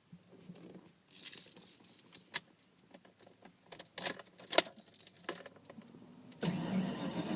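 Keys jangling and clicking, as on an ignition key ring, then about six and a half seconds in the 1992 Ford Ranger's 302 V8 starts up and runs.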